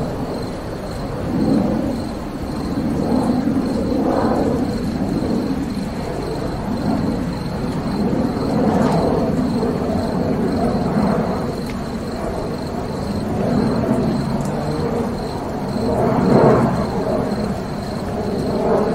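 Jet aircraft engines on a wet airport ramp, a heavy rumble that swells and fades every few seconds over a steady high whine.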